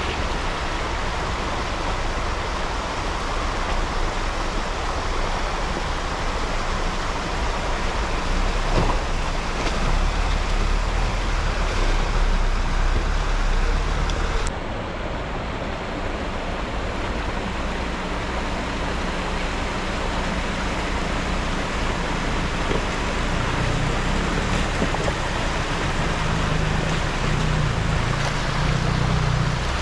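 An off-road 4x4's engine running under a steady rushing, splashing-like noise. The sound changes abruptly about halfway through, the hiss dropping and a lower engine drone coming forward.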